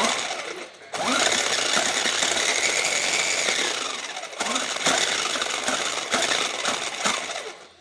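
JLB Cheetah RC buggy's electric motor and drivetrain running under throttle, a loud rattling, grinding clatter in two runs of a few seconds with a short break about four seconds in. It comes from a drivetrain that only drives one or two wheels instead of all four, which the owner puts down to a slightly bent drive rod or a loose part.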